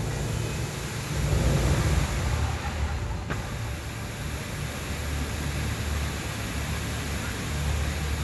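Steady outdoor background noise: a low rumble with an even hiss over it, no music.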